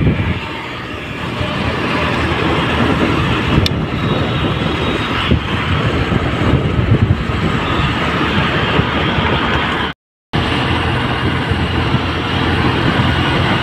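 Steady road and traffic noise heard from a moving two-wheeler, with its engine and passing cars in a dense rush. The sound drops out completely for a moment about ten seconds in.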